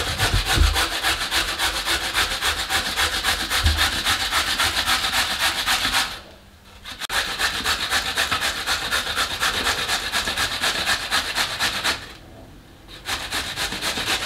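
Red carrots being grated by hand on a four-sided stainless-steel box grater: rapid, even scraping strokes, with two pauses of about a second, about halfway through and near the end.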